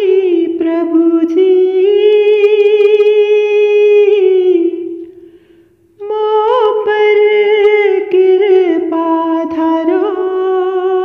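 A solo voice singing a slow devotional bhajan without accompaniment, drawing out long held vowel notes with small ornaments and no words. The voice fades out about five seconds in and comes back a second later.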